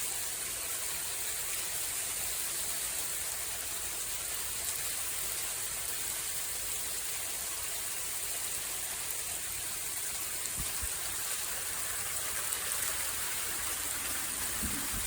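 Small hailstones falling steadily in a continuous pattering hiss, with no single strike standing out.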